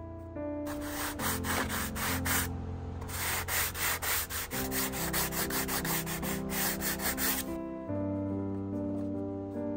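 Edge of a balsa sheet being hand-sanded with a sanding bar: quick, even back-and-forth rasping strokes in two runs, with a short pause about two and a half seconds in, then stopping near the end. Background music plays throughout.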